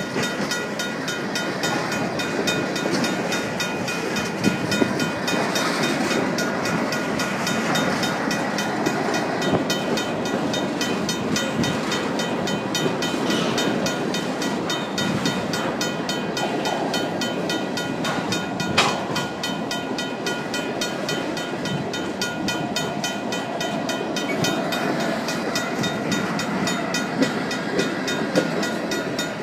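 Freight train of tank cars rolling past slowly, with a steady wheel-on-rail rumble and a few sharp clanks, one loud near the middle. A mechanical crossing bell rings steadily over it.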